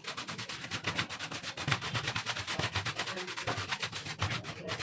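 Rapid scrubbing strokes cleaning dust out of an opened HP 1000 laptop, a quick, even back-and-forth rubbing several strokes a second.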